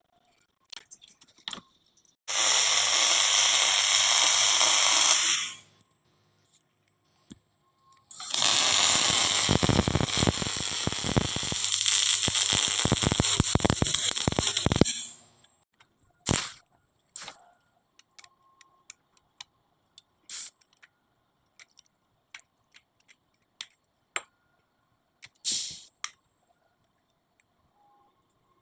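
MIG welding on steel: a steady arc hiss with a low hum, then a longer crackling, sputtering run. These are followed by several short bursts like tack welds.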